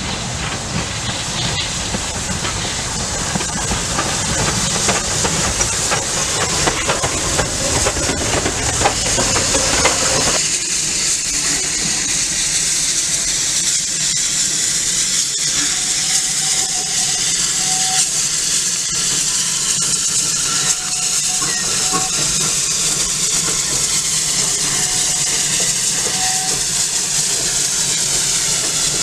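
Victorian Railways J-class steam locomotive J549 moving slowly: a low rumble with hissing that grows louder, changing abruptly about ten seconds in to a steady hiss of steam as the engine eases along.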